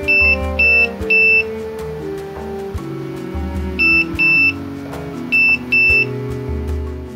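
An SS04 security alarm system's beeper giving short, high, loud beeps over background music: three in quick succession, then a pair about two and a half seconds later and another pair about a second and a half after that.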